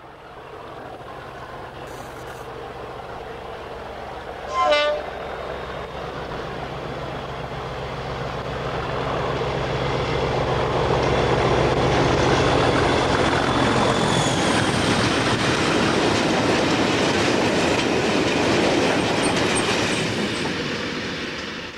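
A British Rail Class 37 diesel locomotive hauling a train of tank wagons passes close by. Its engine grows louder, with a short horn blast about five seconds in. The engine note then gives way to the rumble and clatter of the wagons' wheels over the rail joints, and the sound fades at the very end.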